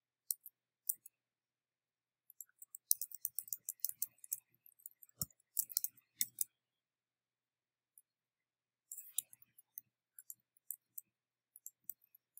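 Faint clicking of a computer keyboard and mouse while text is copied and pasted into a file. There are two rapid flurries of clicks from about two to six seconds in and a shorter one around nine seconds, with scattered single clicks between.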